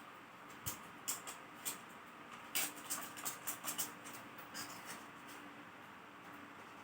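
Irregular small clicks and taps from handling the plastic and metal parts of a Sony Vaio ultrabook during disassembly, busiest a little past the middle, over a faint steady hum.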